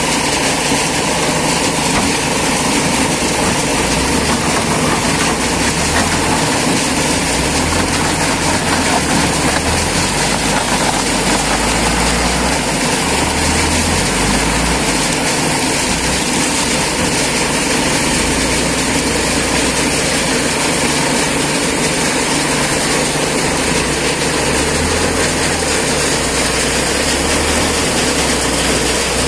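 Wheel loader's diesel engine running loud and steady while it scoops and carries crushed stone, its low note rising and falling several times as it works.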